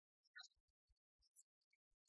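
Near silence, with faint scattered clicks and short blips.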